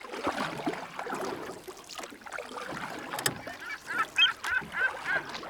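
A bird calling: a quick run of short, wavering calls, roughly three a second, starting about three and a half seconds in, over a background of mixed noise, with a sharp click just before the calls begin.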